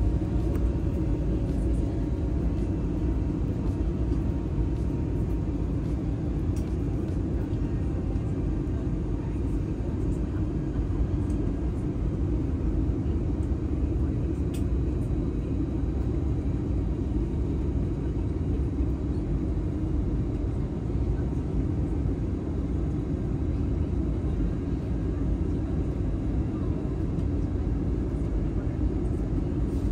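Airliner cabin noise during the descent: a steady low rumble of engines and airflow with an even hiss above it.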